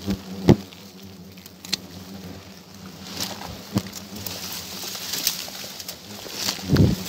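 Hornets (ong vò vẽ) buzzing steadily around their paper nest, broken by a few sharp snips and clicks of hand pruning shears cutting the twigs around it, the loudest within the first second. Leaves rustle and there is a dull thump near the end.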